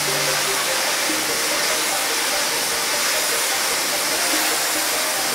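Steady, unbroken hiss of a handheld spray wand spraying cleaning foam onto a rug's pile, with soft background music underneath.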